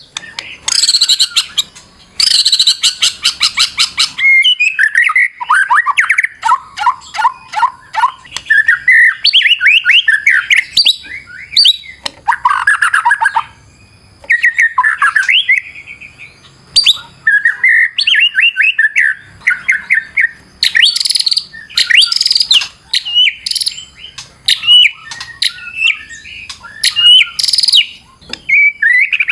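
White-rumped shama (murai batu) singing a long, highly varied song. Fast harsh rattling chatters in the first few seconds give way to quick runs of falling whistled notes, trills and changing phrases, with more rattling bursts near the end.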